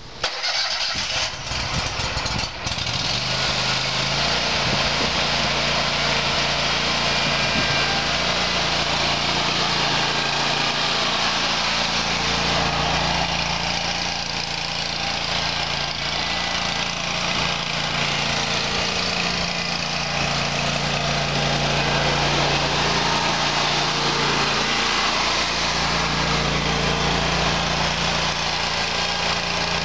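Grasshopper 727K zero-turn mower's 27 HP Kohler EFI V-twin gas engine running steadily as the mower is driven across a lawn. A few sharp clicks and knocks come in the first couple of seconds.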